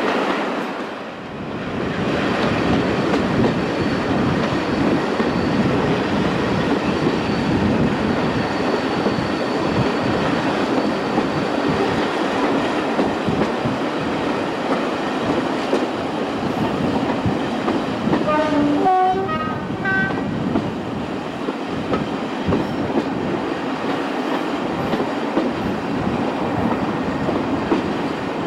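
Train running noise heard from an open coach window behind class 37 diesel locomotive 37215: steady rumble of the train on the track with the diesel engine working. About two-thirds of the way through, the locomotive's horn sounds briefly, its pitch changing in steps.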